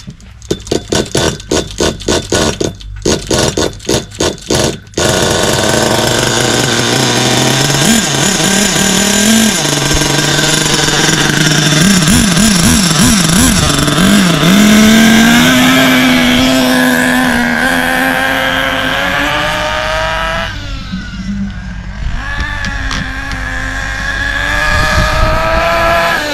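Small .28 nitro engine of an RC buggy turning over in a string of short bursts, catching about five seconds in and running, its pitch wavering and rising as it is blipped and adjusted. It is running really rich during break-in at half throttle. A little after twenty seconds the sound drops as the buggy drives away.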